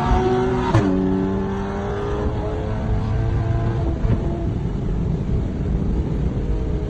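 A motor vehicle engine running loudly, its pitch gliding slowly, with one sharp pop just under a second in, after which the engine sound turns rougher and noisier.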